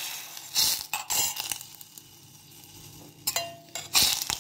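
Utensil clinking and knocking against a cezve as butter melts in it: several sharp clinks with quiet between, one ringing briefly about three seconds in.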